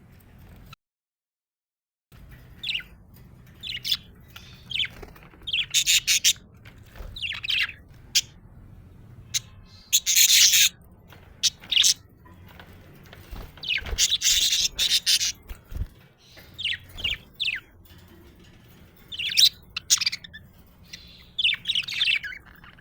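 Budgerigars chirping and chattering in short, irregular calls, with a few louder, harsher squawks. The sound drops to dead silence for about a second and a half near the start.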